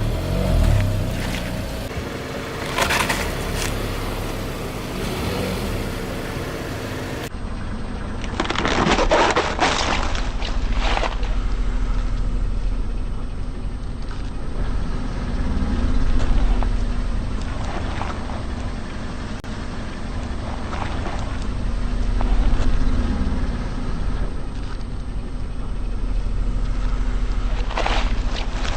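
A car's tyres rolling over objects and crushing them: several crunching, cracking bursts over the steady low rumble of the car.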